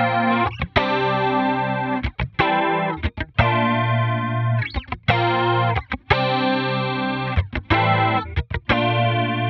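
Clean electric guitar played through a Line 6 Helix modeler with a compressor and the Helix's stereo 70s Chorus set to a moderate depth. It strums a progression of about eight chords, each ringing for around a second, with short breaks and small pick clicks between them.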